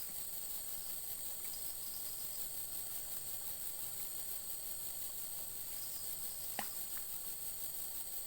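Steady high-pitched chorus of insects, with one sharp click about six and a half seconds in.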